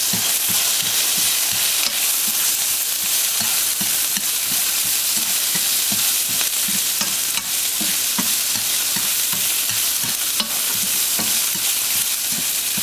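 Shiitake mushrooms stir-frying in oil in a nonstick pan: a steady sizzle under the frequent soft scrapes and knocks of a spatula and then chopsticks tossing them, with a few sharper clicks.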